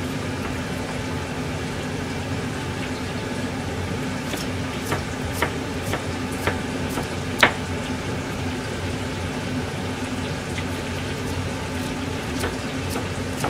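A kitchen knife cutting carrot on a cutting board: a scattering of short, sharp knocks, the loudest about seven and a half seconds in. Under them runs a steady hum and hiss.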